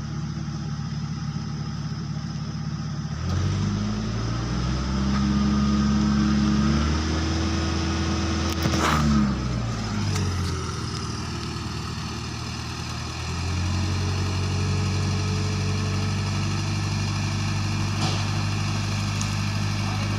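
Engine of a log-loading crane truck idling, then revved up and held for several seconds twice, dropping back to idle in between. There is a sharp click near the middle.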